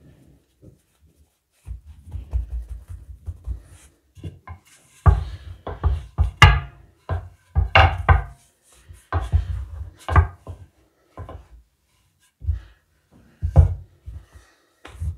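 Wooden rolling pin rolling out a ball of flatbread dough on a floured worktop: runs of rumbling thuds and knocks in short strokes, with pauses between them.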